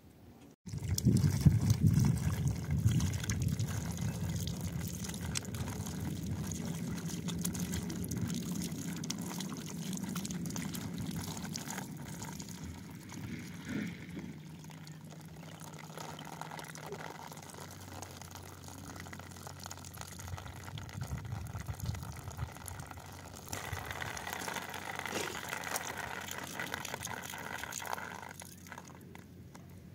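Water from an outdoor tap gushing and splashing over hands being washed. It starts suddenly under a second in, loudest at first, then runs steadily, with louder splashing for a few seconds near the end.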